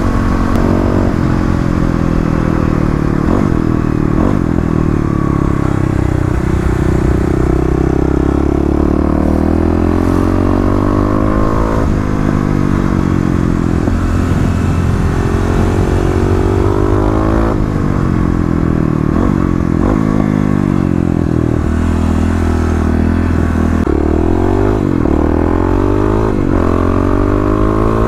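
Bored-out Kawasaki KLX250 (351cc big bore kit) with an FMF Q4 slip-on and Megabomb header, its single-cylinder four-stroke engine running loud, its pitch rising and falling repeatedly as it is revved.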